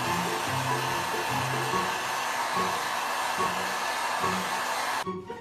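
Hair dryer blowing steadily, cutting off about five seconds in, with low notes of background music underneath.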